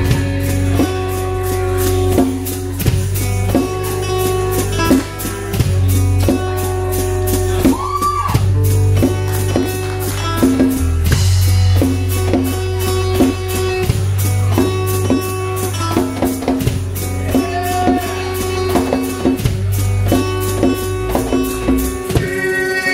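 Live acoustic band music: strummed acoustic guitars over electric bass, with a steady percussion beat.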